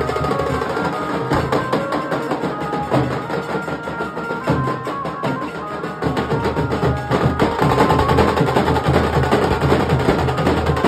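A Nashik dhol band: dhol drums beaten with sticks in a fast, driving rhythm, with brass horns playing a melody over them. The playing grows louder about six seconds in.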